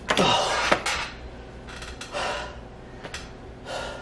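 Tools and sandpaper clattering onto a workbench with a few sharp knocks in the first second, then a man's heavy breaths and sighs, several short puffs of breath.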